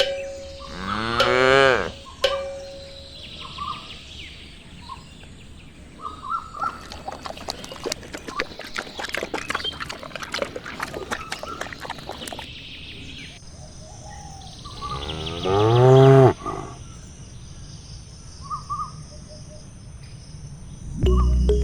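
A cow mooing twice, one long moo about a second in and another about 15 seconds in, with a spell of rapid clattering clicks in between.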